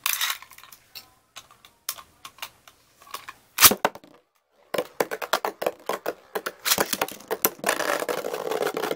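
Beyblade spinning tops in a plastic stadium: scattered light clicks, then one loud sharp clack about three and a half seconds in as a top lands in the stadium. From about five seconds in there is rapid clattering that settles into a steady rattling scrape as the tops spin against the plastic floor and knock into each other.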